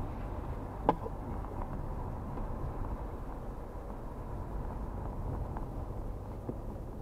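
Car driving heard from inside the cabin: a steady low rumble of engine and tyres on the road, with one sharp knock a little under a second in.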